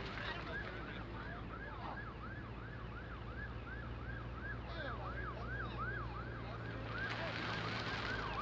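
Emergency vehicle siren in a fast yelp, rising and falling about three times a second, over passing road traffic; a car goes by close with a rush of tyre noise near the end.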